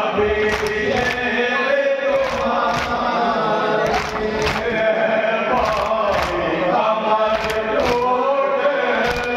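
A group of men chant a marsiya in unison behind a lead reciter on a microphone. Sharp, regular hand slaps on the chest (matam) keep a steady beat a little slower than two a second.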